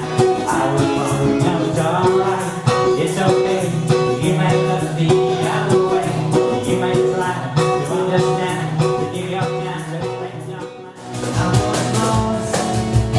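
Live acoustic music led by guitar, with a steady beat. About eleven seconds in, the music briefly drops away, then comes back with a fuller bass.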